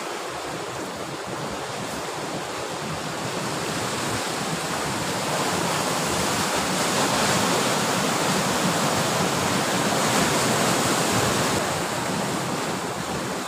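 Sea surf washing against shore rocks: a steady rush of water that swells to its loudest in the middle and eases off near the end.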